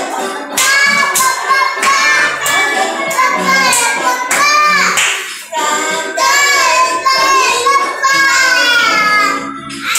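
A children's song playing: a high voice singing over music with a steady beat.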